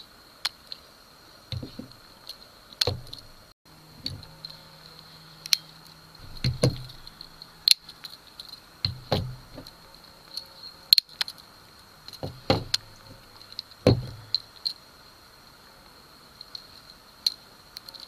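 Red Victorinox Swiss Army knives being handled and set down on a wooden table: irregular metallic clicks, rattles and knocks, a few louder thuds among them, over a steady faint high-pitched tone.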